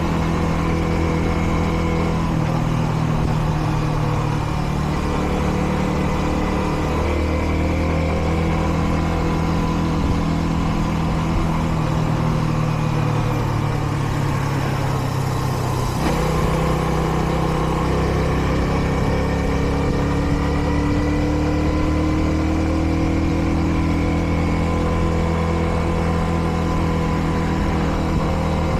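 Kreidler Dice CR 125 motorcycle engine running steadily while being ridden, its note shifting up and down several times with throttle and gear changes, with a sharp change about halfway through. The engine is still in its break-in period, so it is held to moderate revs.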